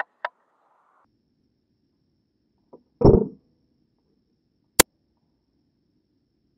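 Spring-powered Snow Wolf M24 airsoft sniper rifle firing once, a short loud thump about three seconds in, followed under two seconds later by a single sharp click.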